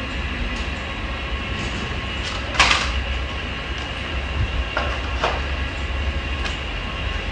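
Portable 800W HDPE geomembrane welding machine running with a steady hum and low rumble, with a few short rustles from the plastic sheet being handled, the loudest a little over two and a half seconds in.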